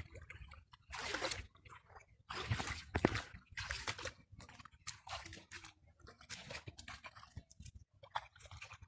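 Irregular short splashes and squelches of hands working through muddy water, with a few sharp clicks between them.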